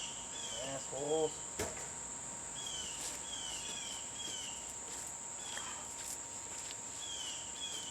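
Steady high-pitched insect drone outdoors, with short falling chirps repeated every half second or so, and one sharp click about a second and a half in.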